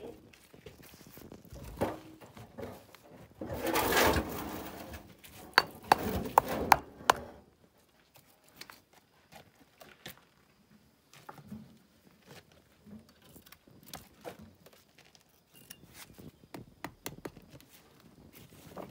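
Stone masonry work: sharp knocks and clinks of stones and tools. A scraping rush comes about four seconds in and a cluster of loud sharp knocks follows around six to seven seconds, then only scattered faint taps.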